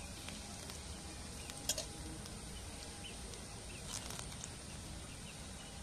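Banana fritters deep-frying in hot oil in a metal kadai, a steady sizzle, with two light clicks of a metal spatula against the pan, about two and four seconds in.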